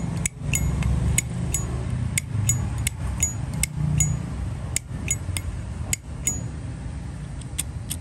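A Zippo lighter's hinged brass lid being flicked open and snapped shut over and over, each stroke a sharp metallic click, many with a brief high ring. There are about eighteen clicks in eight seconds, in irregular pairs and singles, with a pause near the end.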